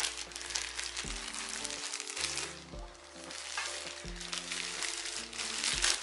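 Thin plastic bag crinkling and crackling as it is handled and pulled off a hair dryer, with background music underneath.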